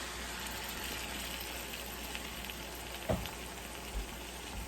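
Blue crab stir-frying in oil and red curry sauce in a pan, a steady sizzle, with a light knock about three seconds in and a fainter one a second later.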